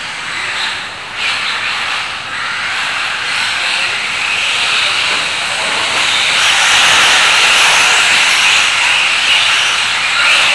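RC trucks running on a dirt track: a loud, steady hissing rush of motors and tyres that grows louder about six seconds in.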